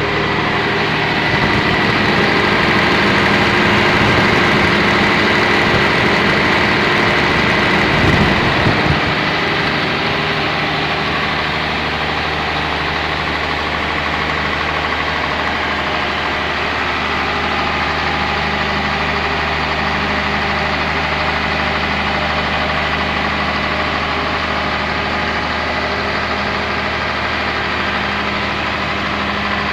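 Volvo Penta diesel engine of a 300 kVA open-type generator set running steadily on test. It is a little louder in the first several seconds, surges briefly about eight seconds in, then settles to an even drone.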